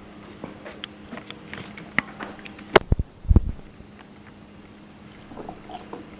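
Dishes and cutlery clicking and knocking on a table while food is served. A run of small clinks builds to one sharp clink about three seconds in, followed at once by a low thud, then a few faint clicks. A faint steady hum runs underneath.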